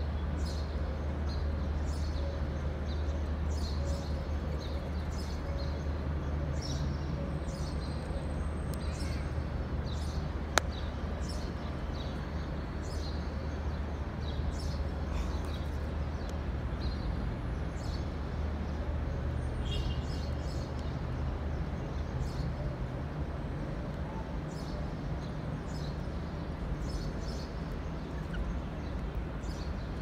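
Steady low rumble of city traffic, with many short, high bird chirps scattered throughout and one sharp click about ten seconds in.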